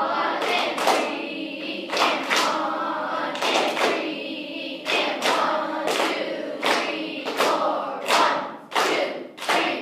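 Beginning school wind band playing together: a string of held notes, each starting with a sharp attack, roughly in time to a steady beat.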